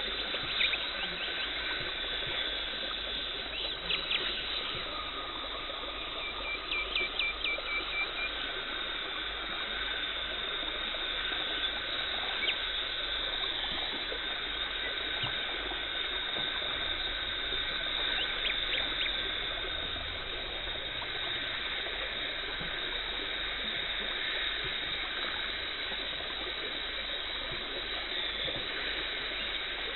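Dental cleaning equipment running: a steady watery hiss of water spray and suction in the mouth during tartar removal, with scattered small clicks and a quick run of clicks about seven seconds in.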